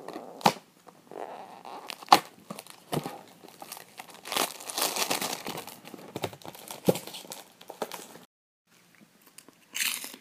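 A cardboard box of Napolitanke wafers being opened, with the plastic wrapper inside crinkling and tearing. There are sharp snaps about half a second and two seconds in, and a longer spell of rustling in the middle.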